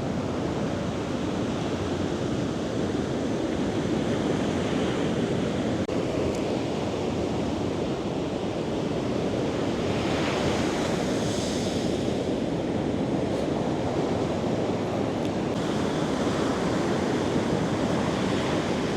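Large Atlantic waves breaking and washing onto the shore: a steady, continuous surf noise with no let-up.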